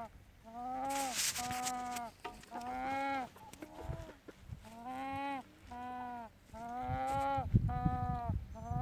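An animal giving a repeated, steady-pitched call, about seven calls in all, mostly in quick pairs, each slightly falling at the end.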